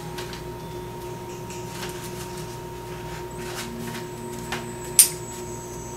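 Quiet handling of a glass microscope slide and cover slip in gloved hands against a paper towel, with faint light ticks over a steady electrical hum, and one sharp click about five seconds in.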